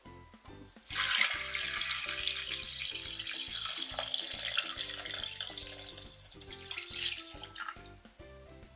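Water poured from a bowl into a stainless steel pressure-cooker pot, splashing onto a raw chicken; the pour starts about a second in and tails off near the end. Soft background music plays under it.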